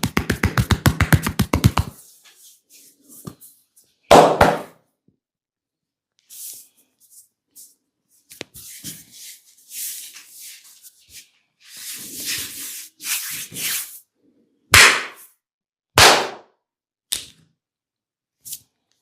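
Hand massage on skin: a fast, even run of percussive chops or slaps, about eight a second, that stops about two seconds in. Then come stretches of hands rubbing over skin and a few single loud smacks, the loudest about four seconds in and twice near the end.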